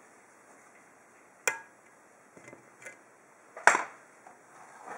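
Sharp metallic clicks from picking a Thomée five-pin oval cylinder lock with a hook pick and tension wrench: one about a second and a half in, a few faint ticks after it, and a louder click near the end.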